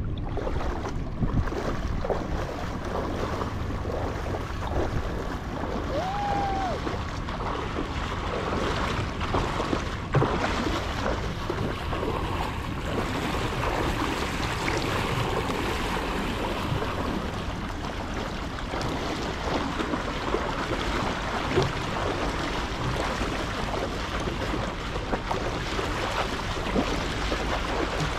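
Shallow river water rushing and splashing along a kayak's hull as the kayak is pulled upstream through riffles, with wind buffeting the microphone.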